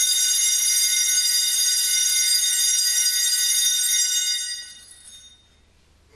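Altar bells, a cluster of small hand bells, shaken in one continuous high jingling ring at the elevation of the chalice after the consecration, fading out about four and a half seconds in.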